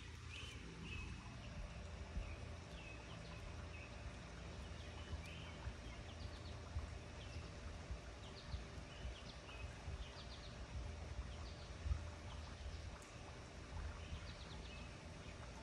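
Faint outdoor ambience: a steady low rumble with short, high bird chirps scattered throughout.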